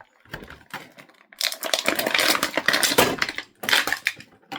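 Plastic and cardboard action-figure packaging being pulled apart by hand, crinkling and crackling. It is thickest for a couple of seconds in the middle, with a shorter burst near the end.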